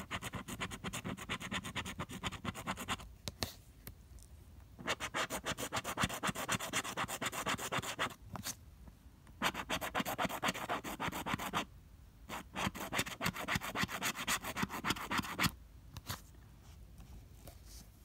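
A plastic scratcher tool scraping the coating off a scratch-off lottery ticket in quick back-and-forth strokes. It comes in four bursts of a few seconds each, with short pauses between them, and a few single strokes near the end.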